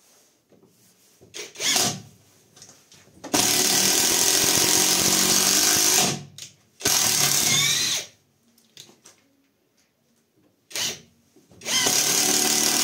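Catpower 4226 cordless impact wrench, set to high torque, driving a 6x50 mm Phillips wood screw into a wooden log. It runs in trigger bursts: a couple of short blips, then a run of about two and a half seconds, a one-second run, another short blip, and a further run near the end.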